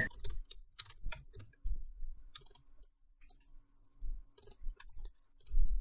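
A few scattered, soft clicks of a computer mouse, with faint low thumps.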